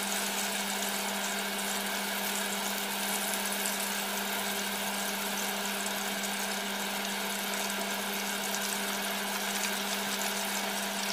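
Steady motor-like hum with a constant hiss and faint crackle over it, the running background of a stove where pots are boiling and pork belly is frying.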